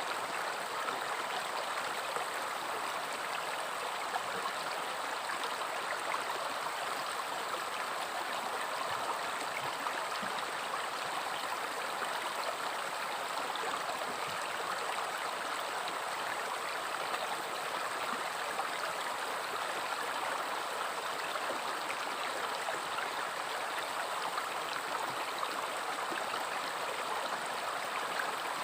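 River water flowing, a steady unbroken rush with no pauses or changes.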